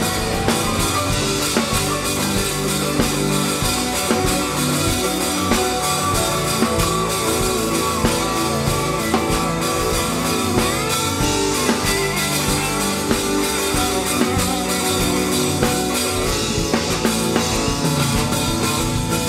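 Live rock band playing: electric guitar leading over a drum kit, steady and loud throughout.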